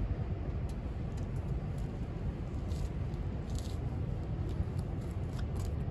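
Albus pellet and wood stove burning: a steady low rumble with a few faint ticks scattered through it.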